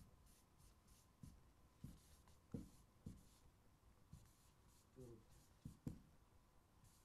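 Faint taps and short strokes of a pen writing on a board, about eight of them at uneven intervals.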